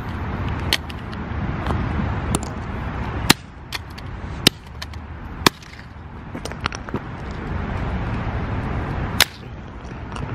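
Sharp cracks of a hammer striking a Samsung Galaxy Grand Prime smartphone lying on asphalt, about five blows spaced irregularly, over a steady low rumble.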